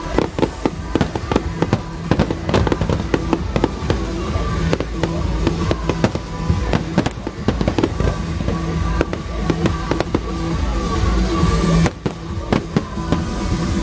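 Aerial fireworks shells bursting in rapid succession: many sharp bangs and crackles, several a second, with a short lull about twelve seconds in. Music plays steadily underneath.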